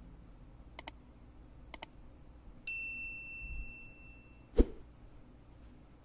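Subscribe-reminder sound effects: two quick double clicks about a second apart, then a bright bell-like ding that rings out for about a second. A little later comes a single sharp knock, the loudest sound.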